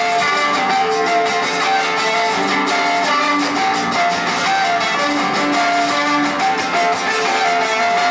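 Amplified violin and acoustic guitar playing a lively instrumental tune together: the violin carries the melody in long held notes over steadily strummed guitar chords.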